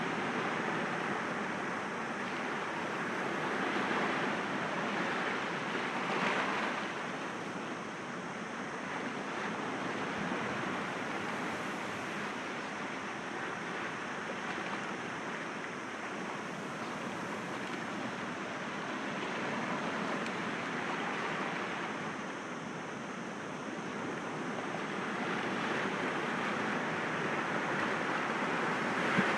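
Sea waves breaking gently against rocks, a continuous wash of surf that slowly rises and falls.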